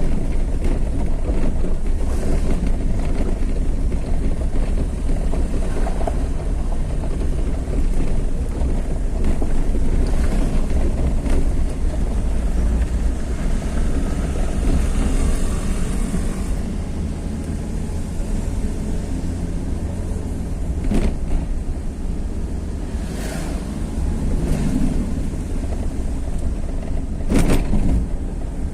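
Steady rumble of a vehicle travelling along a road, with wind buffeting the microphone. A few brief knocks come in the last third.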